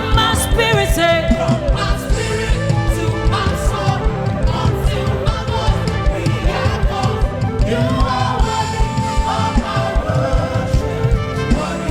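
Live gospel worship music: a band playing over a steady drum beat, with voices singing.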